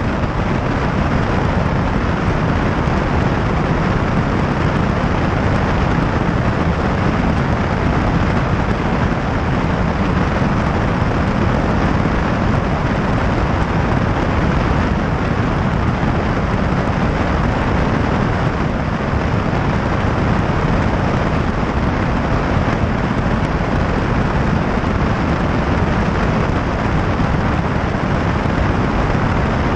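Light high-wing airplane in level flight: the steady drone of its engine and propeller mixed with rushing air.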